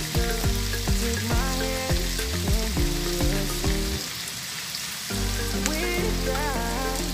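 Chicken pieces, potato and carrot sizzling as they fry in a nonstick pan, with background music playing over it; the music's bass drops out for about a second midway while the sizzle goes on.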